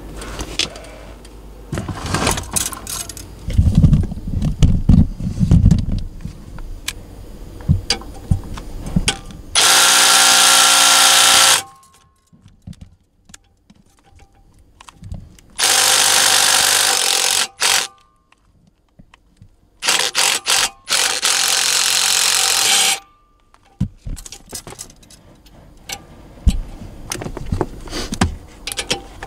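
Ridgid cordless driver running in three bursts of about two to three seconds each, about ten, sixteen and twenty seconds in, unbolting a truck seat's mounting bar. Between the bursts come knocks and clinks of hand work on the seat base.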